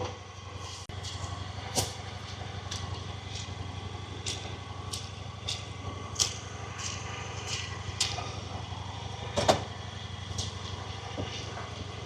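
A vehicle engine idling steadily, a low hum, with irregular sharp taps and knocks over it, the loudest about nine and a half seconds in.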